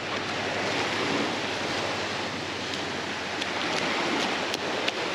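Small waves washing in and out on a sandy beach, a steady rush of surf, with a few short sharp ticks in the second half.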